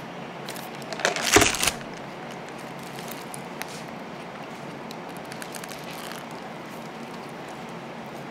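Loud crinkling of plastic and foil wrapping about a second in, lasting under a second, then faint crackles and mouth clicks as a hamburger is chewed.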